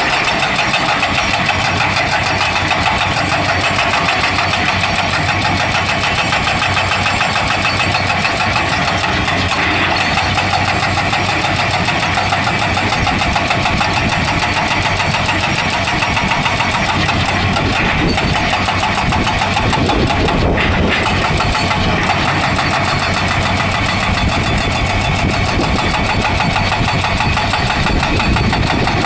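Excavator working with a hydraulic breaker hammer: a fast, steady rattle of blows over the running engine.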